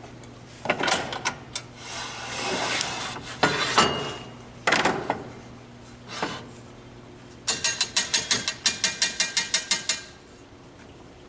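Handling noise from a switched-off table saw being set for a 4-inch cut: scattered knocks and a sliding rub, then a quick, even run of about fifteen sharp clicks, some seven a second, lasting a couple of seconds.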